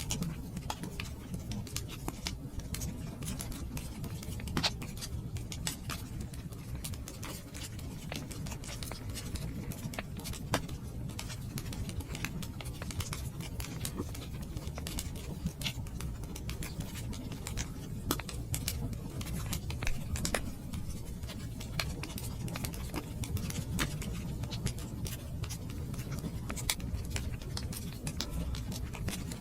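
Campfire crackling: irregular sharp pops and snaps, a few louder than the rest, over a steady low rumble.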